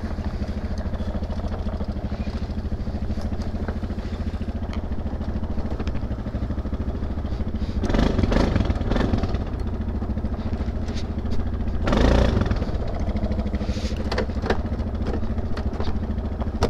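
Linhai 400S Dragonfly ATV engine running steadily while riding off-road, with two louder surges about eight and twelve seconds in. Scattered short knocks and clatter come from the machine over rough ground.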